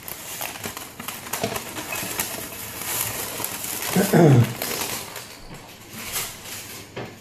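Greaseproof paper crinkling and rustling as baked crumble topping is tipped off a metal baking tray onto a plate, with many small clicks. About four seconds in there is a short vocal sound from a person that falls in pitch.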